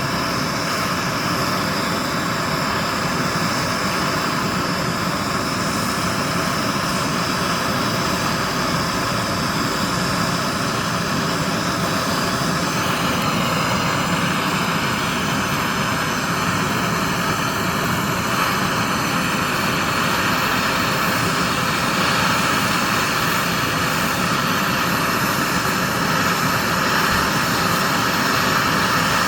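Gas torch burning with a steady, loud roar as its flame heats gold in a mold to melt it.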